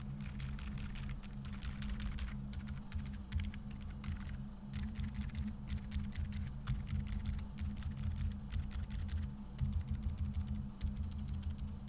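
Fast typing on a KBDFans Odin v2 mechanical keyboard with lubed Boba U4 silent tactile switches on a polycarbonate plate with case and plate foam, giving quiet, muted keystrokes. The keystrokes come in quick runs with a few short pauses, over a low steady hum.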